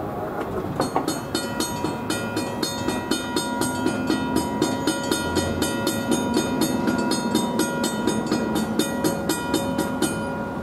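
Railroad grade-crossing warning bell ringing in rapid, evenly spaced strokes, each stroke ringing on. It starts about a second in and cuts off abruptly near the end, over the low rumble of a train.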